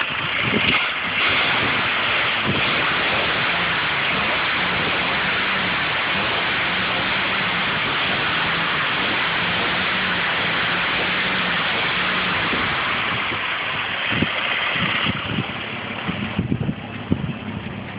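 1946 Hudson Commodore's flathead straight-six idling on a hot start, covered by a steady rushing hiss. The hiss fades near the end, leaving the uneven low pulses of the idle.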